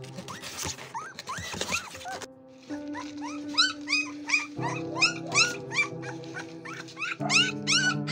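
Newborn puppy crying in short high squeals that rise and fall, a few at first and then about two a second, over background music of held chords.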